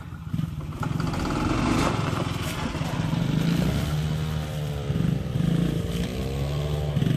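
Small pit bike engine running, revving with its pitch dipping and then rising in the second half.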